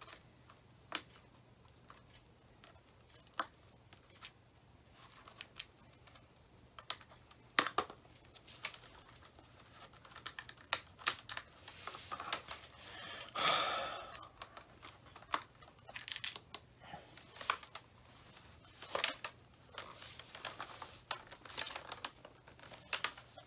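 Small irregular clicks and ticks of a screwdriver working tiny screws out of a laptop's plastic screen housing, with one brief longer scrape about halfway through.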